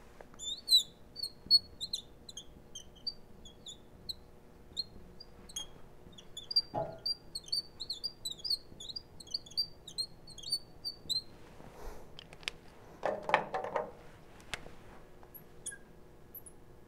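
Felt-tip marker squeaking on the glass of a lightboard as words are written: many short, high chirping squeaks in quick runs, one per pen stroke. Near the end come a few soft knocks and rubs.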